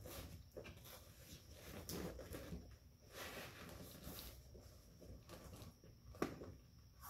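Faint rustling and scraping as a vinyl cover piece is stretched and looped onto the plastic shell of a Deckmate folding boat seat, with one sharp tap about six seconds in.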